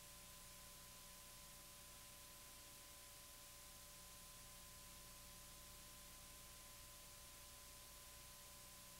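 Near silence: a faint steady hiss with low electrical hum and a faint steady tone.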